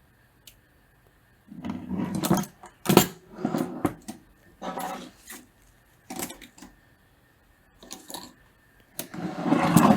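Metal clicking and rattling from the keys and mechanism of an antique Corona typewriter being handled, in short separate bursts with quiet gaps, the longest near the end.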